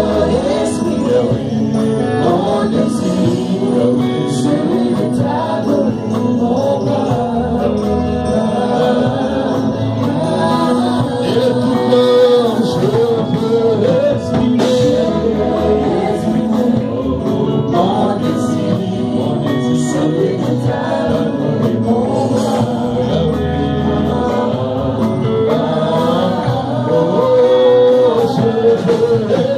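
Live gospel worship music: a man singing into a microphone, leading a small church band of keyboard, drums and electric guitar, steady and continuous.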